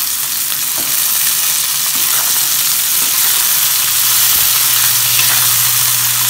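Steamed cluster beans sizzling in hot oil in a wok as the water left in them fries off, while a metal spatula stirs them with light scrapes against the pan.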